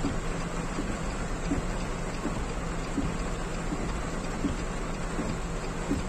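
Heavy rain falling on a car's roof and windshield, heard from inside the moving car as a steady hiss over a low vehicle hum. A light tick repeats about every three-quarters of a second.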